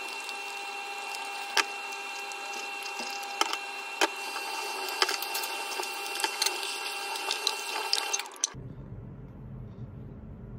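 Dishwashing at a stainless-steel sink: a soapy sponge scrubbing and dishes clinking and knocking against the sink, over a steady hiss. About eight and a half seconds in it cuts to a quieter low hum.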